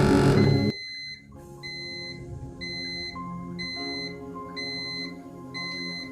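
Seafort 300 bar compressor running loudly, then stopping abruptly under a second in. Its pressure alarm keeps beeping about once a second, signalling that the set fill pressure of 200 bar has been reached.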